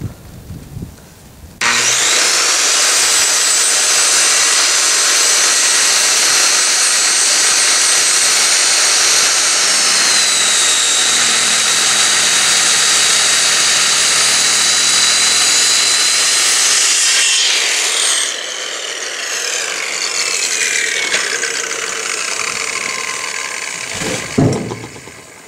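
Handheld circular saw started up and cutting through a wooden landscaping timber, a loud steady whine that dips slightly in pitch partway through the cut. About seventeen seconds in the trigger is released and the whine falls in pitch as the blade spins down over several seconds, followed by a thump near the end.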